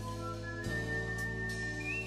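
Background music: a held high melody line over sustained chords, the chord changing about two-thirds of a second in.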